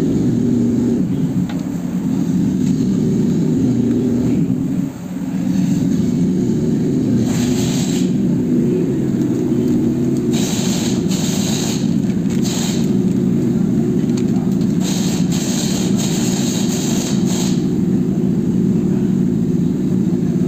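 Steady low rumble of a vehicle engine running close by, dipping briefly about five seconds in. Several short rustling handling noises come over it in the second half.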